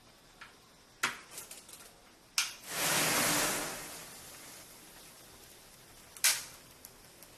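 Rows of matchsticks catching fire: a few sharp snaps, then a loud hiss of many match heads flaring at once about two and a half seconds in, fading to a low fizz, with another sharp snap near the end.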